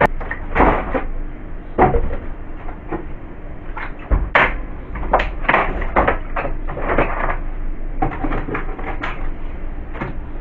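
Food containers, jars and bottles being taken out of a fridge and set down: irregular clunks, knocks and rattles, some in quick clusters.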